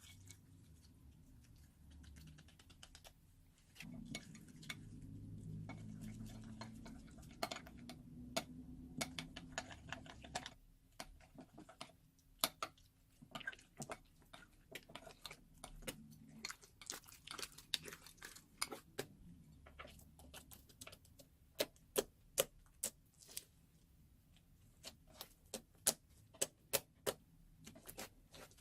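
Crunchy slime being squeezed and worked: a low, steadier squishing for several seconds about four seconds in, then sharp crackling clicks and pops in irregular runs, most of them in the second half.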